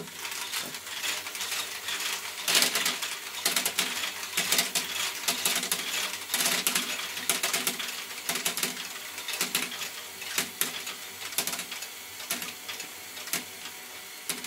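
LEGO Technic quadruple-stepper ball lifter running: a small electric motor hums steadily while the plastic stepper plates shuttle small plastic balls upward, giving a constant clatter of sharp clicks and rattles. It starts suddenly as the motor is switched on.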